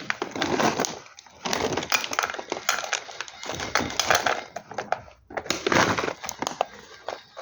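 A pet chewing crunchy food: crisp crunches come in bursts of a second or two, with short pauses between them.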